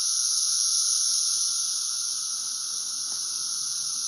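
A chorus of thousands of cicadas making a steady, high-pitched buzz that swells and ebbs in waves as they sync up, louder in the first half and dipping about three seconds in.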